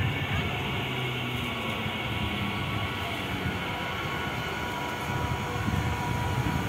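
BEML three-phase MEMU electric train running into the station, a steady rumble of wheels and running gear with a thin steady whine above it. The rumble grows louder over the last second or two as the train draws close.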